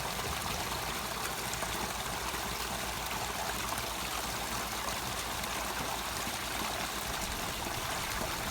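Steady, even white noise that sounds like rushing running water, unchanging throughout.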